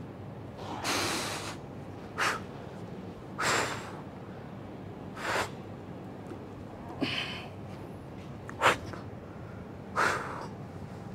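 A man breathing hard under exertion: about seven short, forceful breaths in and out through the nose and mouth, a second or two apart, the sharpest one a little before the end.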